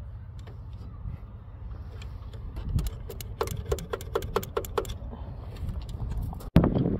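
Hand tools working in a car's engine bay: a quick run of sharp metallic clicks, about five a second, midway through, over a steady low rumble.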